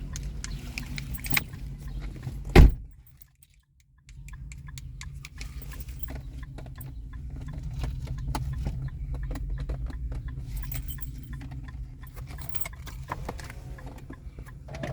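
A car key jingling and clicking as it is handled at the ignition, over a steady low rumble, with one loud sharp knock about two and a half seconds in.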